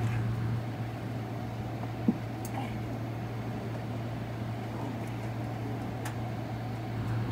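Steady low hum of a parked Boeing 777-300ER's cabin air-conditioning and ventilation, with one brief knock about two seconds in.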